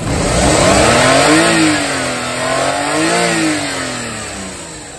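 Suzuki K6A three-cylinder petrol engine, freshly installed, revved twice, rising in pitch and easing back each time, then settling back toward idle.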